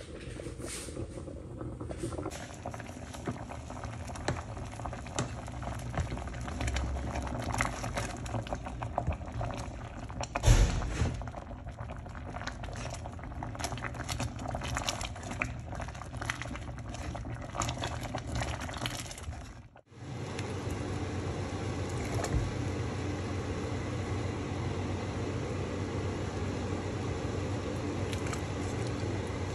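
Pot of brown lentil daal boiling hard, with dense bubbling and popping, while a wooden spoon stirs it; a single loud knock about ten seconds in. After a short break about twenty seconds in, a steadier, more even bubbling.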